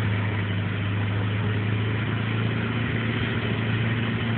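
Off-road vehicle's engine running steadily at a low, even speed, with no revving.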